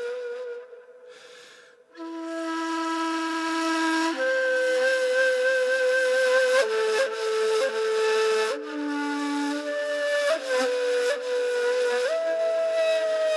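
Ney, the Turkish end-blown reed flute, playing a solo taksim improvisation in makam Nev'eser. Long, breathy held notes move in steps between pitches, with a short break for breath about a second in.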